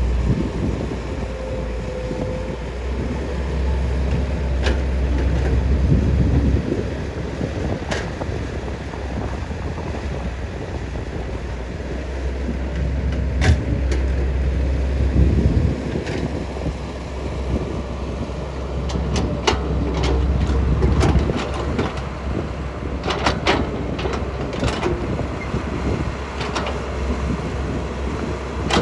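Cat 320 hydraulic excavator's diesel engine running with a steady low rumble, with scattered sharp knocks from the working machine, coming thick and fast in the second half.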